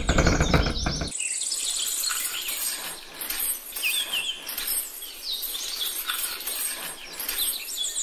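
Steady engine sound that cuts off about a second in, followed by birds chirping and tweeting over a faint background hiss.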